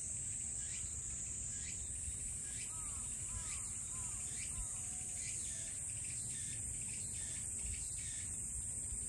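A summer insect chorus keeps up a steady, shrill, high-pitched drone, with a shorter insect call repeating about every two-thirds of a second. In the middle a bird gives four quick arched chirps. A low rumble runs underneath.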